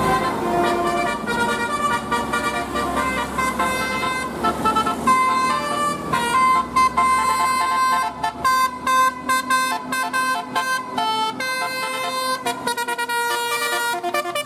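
Indonesian bus 'telolet' horn: a multi-tone horn playing a changing melody of held notes, breaking into short clipped toots from about eight seconds in. A low rumble sits beneath the first half.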